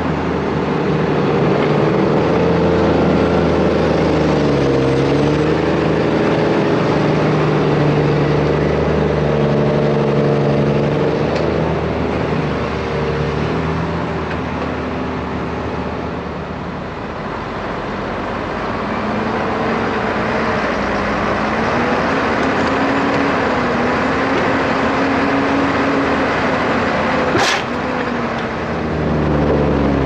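Heavy diesel engines of farm machinery, tractors and a tracked excavator, running hard under load in deep mud. Their pitch sags and climbs back over a few seconds at a time as they strain.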